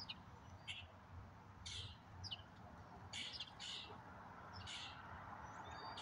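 Small songbirds chirping faintly in the background: six or seven short, high chirps at irregular intervals, some sliding in pitch.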